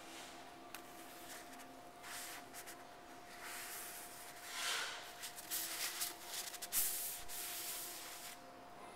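A towel wiping a puddle of water off a sealed honed stone countertop: a series of rubbing swipes across the stone, loudest in the middle of the wipe.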